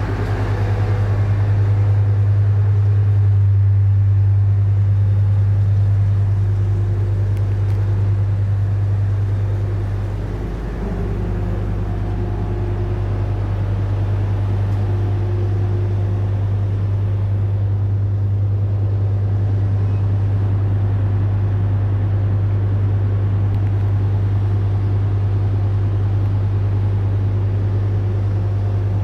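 Car ferry's diesel engines droning steadily as a deep, even hum under the deck as the ship gets under way out of port, briefly dipping about eleven seconds in.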